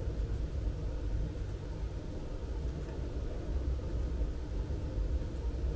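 Steady low rumble of outdoor town ambience, with no single event standing out.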